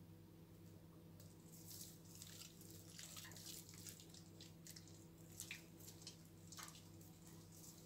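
Faint wet squelching and crackling of soapy, lathered hands rubbing together, starting about a second in, over a low steady hum.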